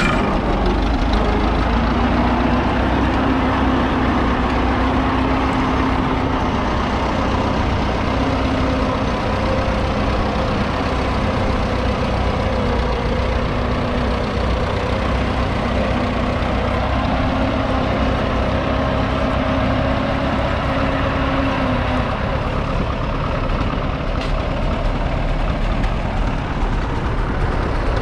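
A 1942 Fordson Model N's 4.4-litre four-cylinder petrol/TVO engine running steadily under load while the tractor pulls a two-furrow trailed plough through the soil. Its note drops a little about three quarters of the way through.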